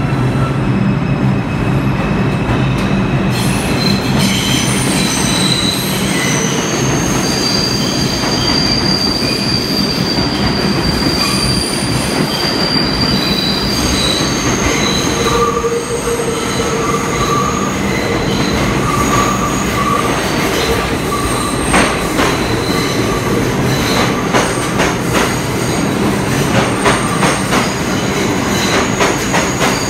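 R142-family New York City subway train running into a station. Its wheels squeal in high, shifting tones over a steady rumble from about three seconds in. In the last several seconds, a quick clicking of wheels over the rail joints joins in as the cars pass.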